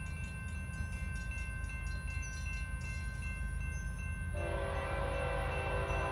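Diesel freight locomotive's air horn sounding a long, steady chord that starts about four seconds in. A low rumble and faint steady ringing tones run underneath.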